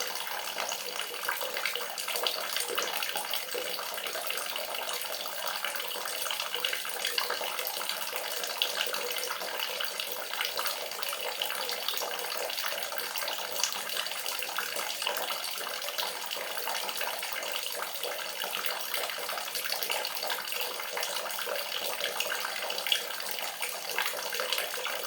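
Steady running water, an even splashing hiss with fine crackle and no pauses.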